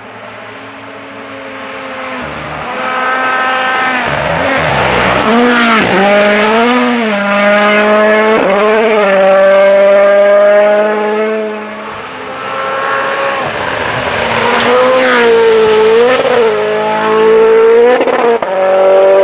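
Rally car engine at high revs, flat out, its pitch climbing and dipping briefly with each quick gearshift as it grows louder. About two-thirds of the way through it eases off for a moment, then revs up again through more shifts.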